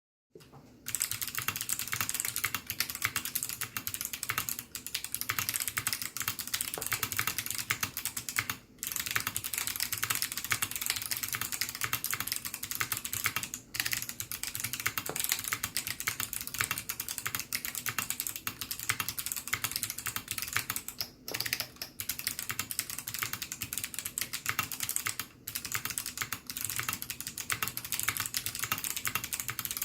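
Continuous fast typing on a ZZ96 mechanical keyboard with clicky Kailh Box Navy switches and EnjoyPBT keycaps, dense key clicks with a few short pauses.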